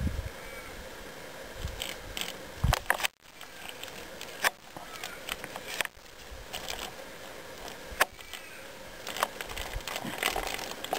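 Hydrochloric acid poured in a thin stream from a plastic jug into a plastic soda bottle: a steady trickle with a few sharp clicks scattered through it.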